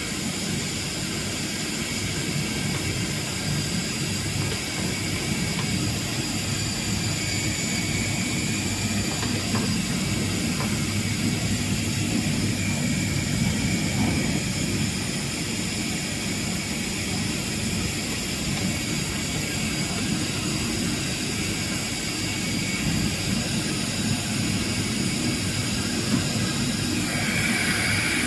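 Twin-spindle CNC router running: a steady high-pitched spindle whine over a low mechanical rumble, growing slightly louder near the end.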